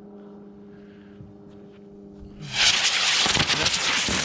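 A model rocket engine ignites about two and a half seconds in and burns with a loud, rushing hiss for nearly two seconds, then dies away.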